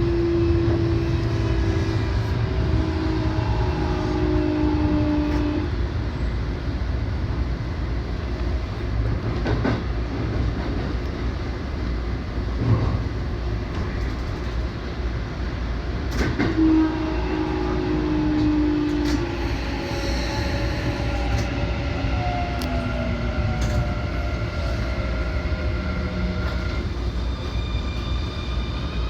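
Keikyu electric train heard from inside the front car as it runs into a station, with a steady rumble of wheels on rail and a few single knocks over rail joints or points. Late on, motor whine falls in pitch as the train brakes.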